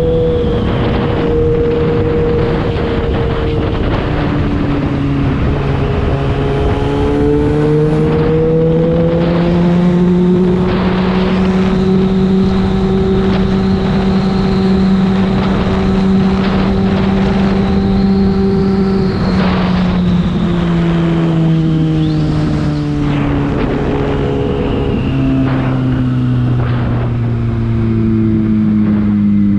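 Yamaha FZ6's inline-four engine through a LeoVince aftermarket exhaust while riding: the revs dip about four seconds in, climb, hold steady through the middle, then fall away as the bike slows. Wind rushes over the microphone throughout.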